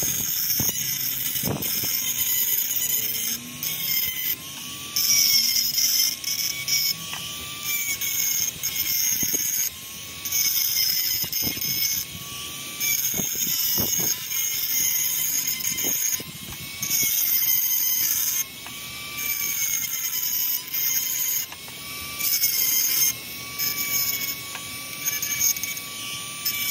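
Tacklife rotary tool running at high speed with a small abrasive bit, its motor whining steadily and wavering slightly in pitch, with a harsh grinding rasp that comes and goes every second or two as the bit is pressed along the edge of a piece of slate to sand it smooth.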